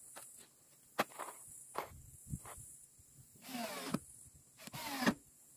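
Cordless drill driving screws into the wooden well-cover boards in short bursts, its whine dropping in pitch as each screw bites, with a few sharp clicks of screws and tools in between.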